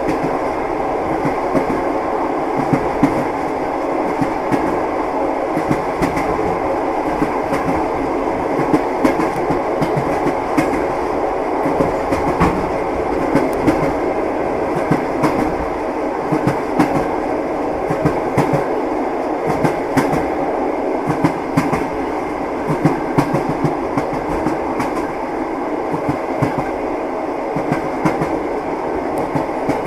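Train wheels knocking over rail joints: many short, sharp clacks over a steady rolling rumble of a railway carriage in motion.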